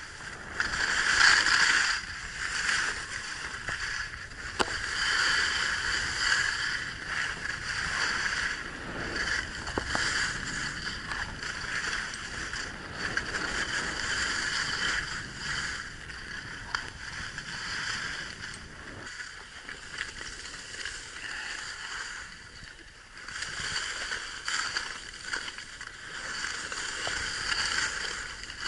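Skis hissing and scraping over packed groomed snow on a downhill run, the noise rising and falling as the skier turns.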